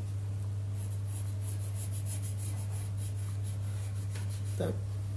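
Pencil scratching on paper in a quick run of short strokes, starting about a second in, over a steady low hum.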